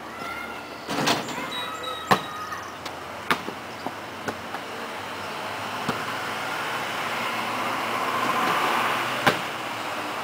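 A basketball bouncing and hitting the hoop: a handful of sharp thuds spread a second or more apart. A vehicle passes, its noise swelling over the last few seconds.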